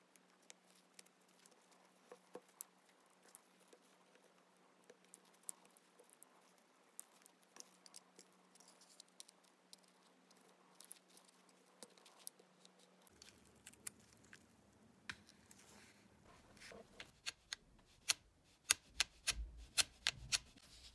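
Faint clicks and taps of small electronic parts being handled: an iPod mini's circuit board and screen fitted into its aluminium case. Near the end the clicks come faster and louder, as the cased players are knocked and set down.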